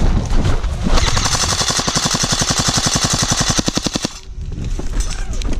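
Airsoft gun firing one sustained fully automatic burst of about three seconds, a fast even stream of roughly a dozen or more shots a second, that cuts off abruptly, followed by a few scattered single clicks.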